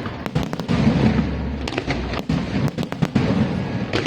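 Aerial fireworks going off: a low rumble of booms under a rapid scatter of sharp cracks and pops.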